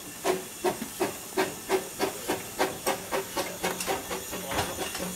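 Narrow-gauge saddle-tank steam locomotive chuffing as it pulls away, about three exhaust beats a second that quicken and fade, over a steady hiss of steam.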